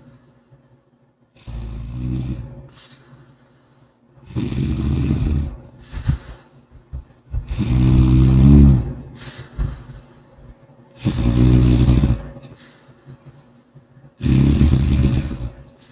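A person snoring loudly, five low-pitched snores about three seconds apart, with shorter, weaker breaths between them.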